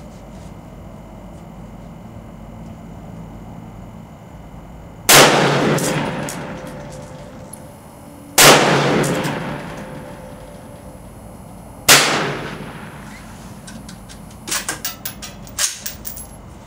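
Three single rifle shots from an AR-15 carbine, about three and a half seconds apart, each followed by a long echo that fades out over a couple of seconds. About two seconds after the last shot comes a quick run of sharp clicks.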